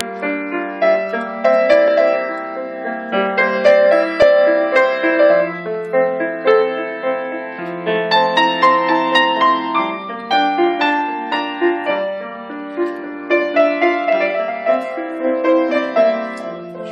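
Grand piano played solo: a slow, gentle melody of single notes and chords over held bass notes.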